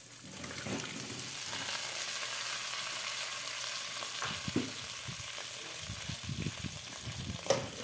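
Oil sizzling steadily in an aluminium pot where garlic and onion are browning, as pieces of fried fish are tipped in at the start. A few soft knocks in the second half and a sharp tap near the end.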